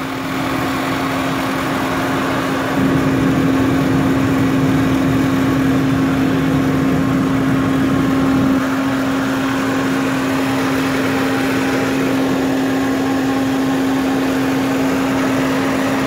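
2003 Lincoln Navigator's 5.4-litre V8 idling high with a loud, steady hum from the air intake, one droning tone that swells a little for a few seconds in the middle. The hum and high idle are the sign of a bad idle air control (IAC) valve.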